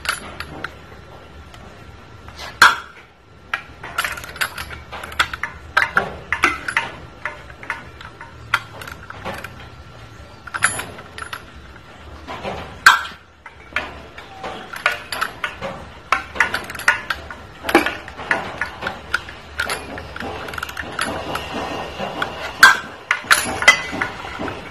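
3/8-inch drive ratchet turning a 14 mm socket on a flexplate bolt, its pawl clicking in quick runs as the handle is swung back, with sharp clinks of steel tools against the flexplate at irregular intervals. A few louder metallic strikes stand out about 3, 13 and 23 seconds in.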